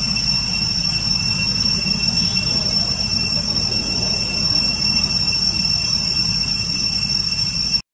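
Steady forest ambience: a low, restless rumble with a steady high-pitched insect drone above it. It cuts off abruptly near the end.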